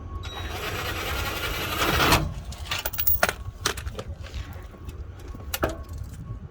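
Underbody shield of a Toyota 4Runner being unhooked and swung down: a rough scrape for about two seconds, then a few sharp clicks and knocks.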